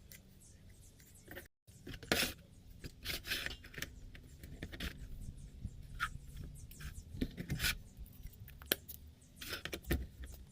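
Irregular clicks, scrapes and rustles of small objects being handled, with a brief cut-out about a second and a half in.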